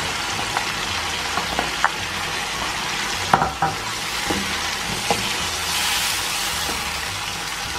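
Chicken pieces sizzling in hot oil as yogurt and onion paste are stirred in with a ladle. The ladle knocks and scrapes against the pan now and then, loudest about three and a half seconds in.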